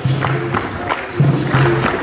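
Capoeira music: a berimbau playing its repeating notes with a pandeiro's jingles and strikes, in a steady rhythm of a few beats a second.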